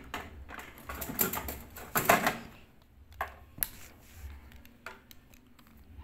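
Pliers working the wire terminals off a microwave oven's in-line fuse holder: scraping and rattling of metal and plastic for a couple of seconds, then a few separate sharp clicks.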